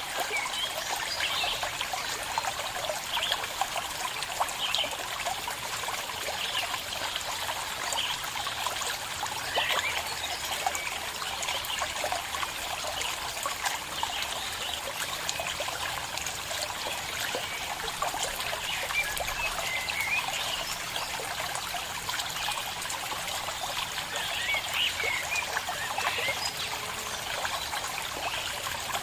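Small stream of water trickling and babbling steadily.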